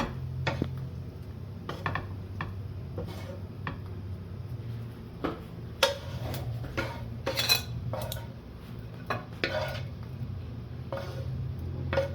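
A spoon or spatula scraping and clinking against a frying pan and bowls as scrambled eggs are dished out: irregular clinks and short scrapes, the loudest cluster about six to eight seconds in, over a steady low hum.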